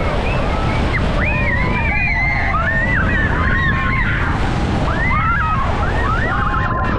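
Steady heavy roar of falling water and spray, with wind buffeting the microphone. Many high, gliding calls or cries rise and fall over the roar throughout.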